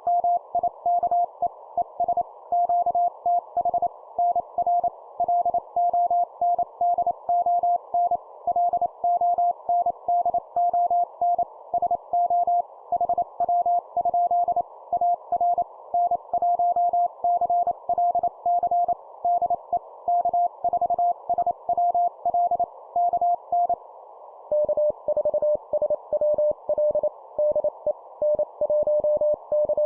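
Amateur radio Morse code (CW) sent at 25 words per minute: a tone near 700 Hz keyed on and off in quick dots and dashes over a narrow band of receiver hiss. About 24 seconds in, after a short pause, a slightly lower-pitched tone takes over as the other station in the contact replies.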